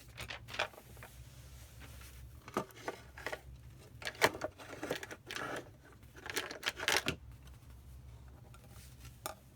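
Scattered clicks, taps and rustling as small electronic and plastic parts of a prototype are handled on a desk, over a low steady hum.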